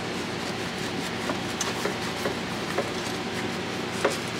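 A few scattered light clicks and knocks of hands and tools working loose the seat and trim panel of a Can-Am Maverick X3 side-by-side, over a steady background hum.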